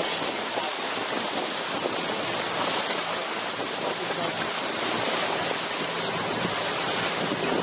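Steady rush of wind and water from a motorboat running under way, with the outboard motor's faint steady hum underneath.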